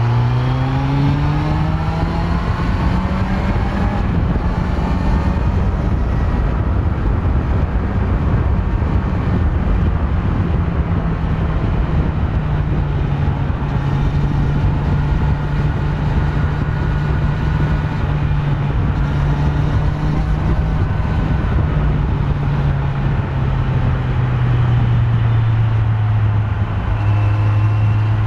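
Kawasaki Z900's stock inline-four engine under way: it accelerates with a rising note over the first couple of seconds, holds a steady cruising note, and eases off to a lower note near the end.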